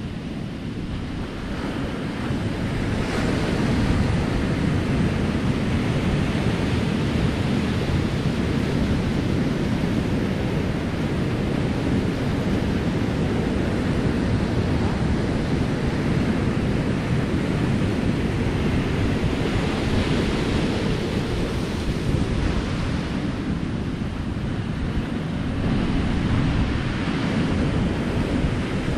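Ocean surf breaking and washing onto a rocky shore, swelling with each breaking wave, with wind rumbling on the microphone.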